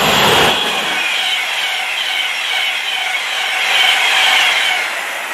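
Avanti West Coast Class 390 Pendolino electric train passing at speed: a loud, steady rush of wheels on rail with a high hiss. The low rumble drops away about a second in, while the high rushing carries on.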